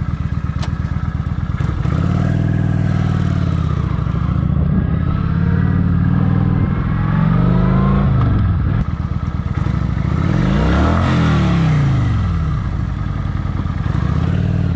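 Motorcycle engine under way, its pitch rising and falling several times as the rider opens and closes the throttle and changes gear.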